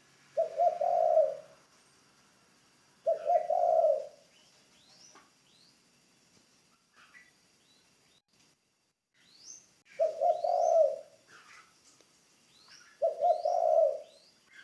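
Spotted dove cooing: four phrases of about a second each, in two pairs, with faint high chirps of small birds between them.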